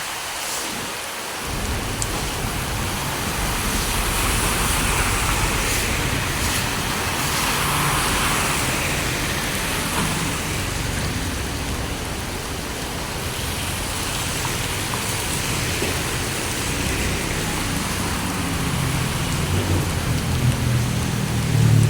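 Heavy rain pouring down steadily, with a low rumble that comes in about a second in. Near the end a vehicle's engine grows louder.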